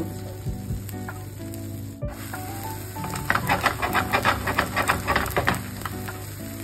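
Oil sizzling under a vrat chila on a hot iron tawa, with a louder run of rapid crackling about halfway through; soft background music plays along.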